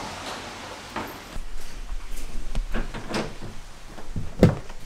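Knocks and clicks from the plastic lid of a roof-mounted ski box being handled, then a car door being opened, with the sharpest knock near the end.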